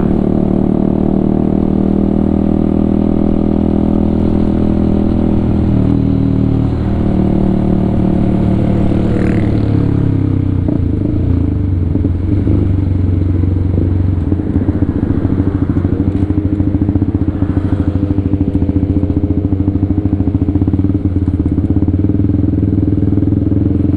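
Honda CBR150R's single-cylinder engine running under a rider. It holds a steady note, drops in pitch about six seconds in and again around ten seconds in as the bike slows, then runs at lower revs.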